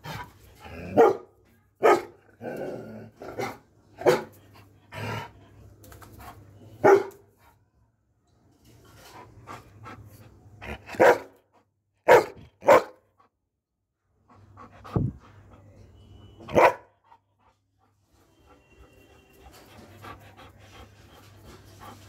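Doberman pinscher barking in single loud barks, about ten of them a second or more apart, panting between them and panting softly near the end.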